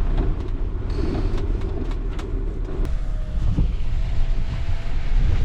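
Blizzard-force wind buffeting a campervan, heard from inside as a loud, steady low rumble with scattered rattles and knocks. The rumble eases slightly about three seconds in, when a faint thin whistle appears.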